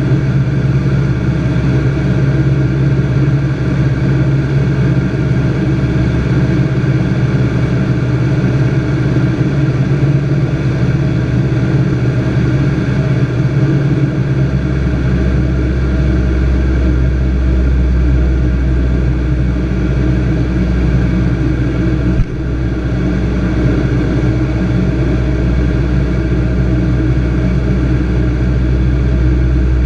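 Piston engine of a Robin light aircraft running steadily, with a low drone that deepens about halfway through. A single short click comes a little past two-thirds of the way through.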